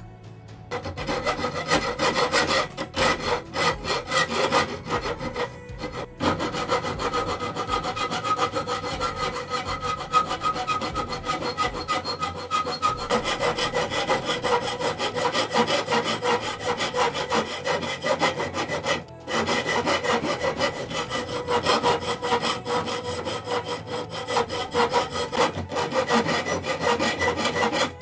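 Steel hand file scraping back and forth over old rusted iron knuckles held in a vise, in quick repeated strokes. It begins about a second in and stops briefly twice, about six and nineteen seconds in.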